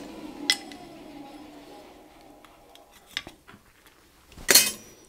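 Blacksmith's anvil and steel tooling ringing: a metallic ring fading away over about three seconds after a sharp tap half a second in, a few light clinks around three seconds, then a loud metal clank of steel on the anvil near the end.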